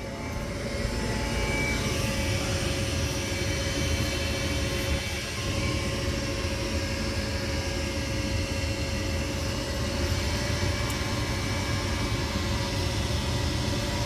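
Gas furnace motor running: a steady whirring hum with a constant tone, growing louder about a second in.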